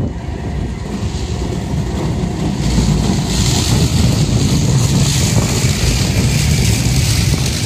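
Manchester Metrolink M5000 tram running past close by on the rails, a low rumble with a hiss that builds about three seconds in and stays loud.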